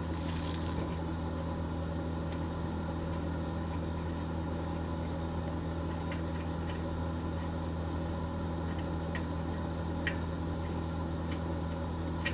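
Start-up blower of an Ekomobiili wood-gas generator running with a steady hum, drawing gas through the gasifier while it heats up before a drive. A few faint clicks are heard over it as fittings on the unit are handled.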